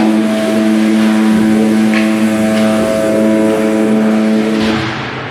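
Ice rink's game horn sounding one long, steady blast that stops near the end.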